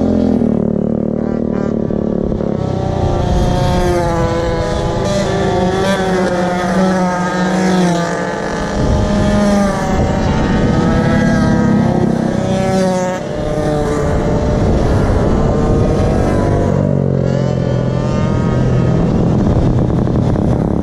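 Small engines of Goped GSR46 gas scooters and mini bikes passing one after another, several running at once. Their pitches keep rising and falling as the riders go by and open and close the throttle.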